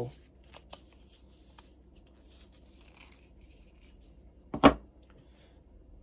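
Faint rustling and small clicks of tools being handled in a fabric tool bag, with one sharp knock about four and a half seconds in.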